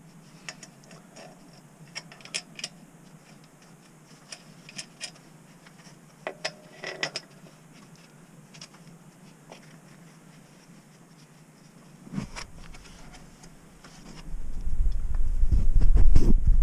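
Scattered light metallic clicks and taps from hand work on bolts and parts of a car engine's intake manifold. Near the end a loud low rumble sets in.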